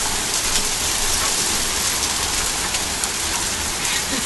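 Heavy rain mixed with hail pouring down in a steady, dense hiss, with faint scattered ticks of hailstones.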